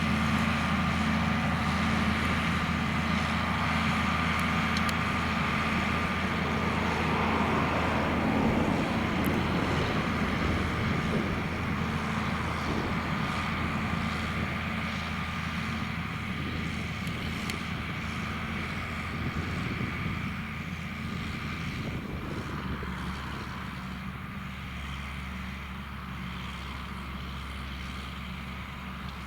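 John Deere 4850's six-cylinder turbo diesel engine running steadily as the tractor pulls a six-furrow plough, growing gradually fainter as it moves away.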